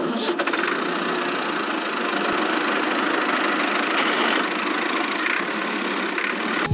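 A small motor running steadily with a dense, fast buzzing whir.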